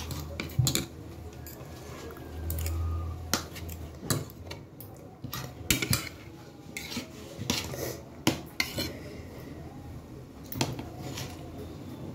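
Metal spoon and fork clinking and scraping against a plate while scooping rice, in irregular sharp clicks.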